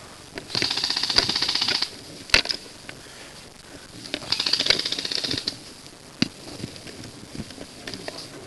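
Airsoft electric rifle firing two full-auto bursts of rapid, even clicks, each just over a second long, with a single sharp crack between them.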